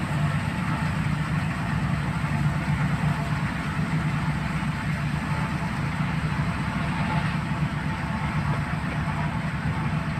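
Preet 849 combine harvester's engine running steadily at constant speed, a low, even drone with no change in pitch.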